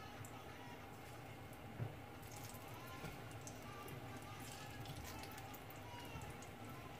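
Faint crackling of oil in a frying pan as ripe plantain slices are laid in to fry, with a soft knock a little under two seconds in.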